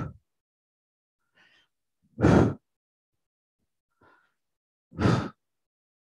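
A man breathing hard with exertion during bicycle crunches: two short, forceful exhales through the mouth, about three seconds apart, each on the twist of elbow to knee and each preceded by a faint inhale.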